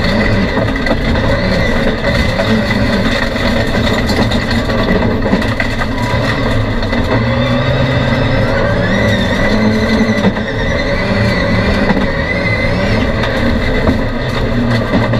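Touring autocross race car engine running at high revs under hard acceleration, heard from inside the stripped cabin. The pitch rises and falls with the throttle. There is a short dip about ten seconds in, as the car shifts up a gear.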